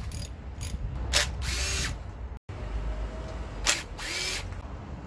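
Cordless drill run in two short bursts, each under a second and each starting with a click, taking screws out of a two-stroke brush cutter's muffler.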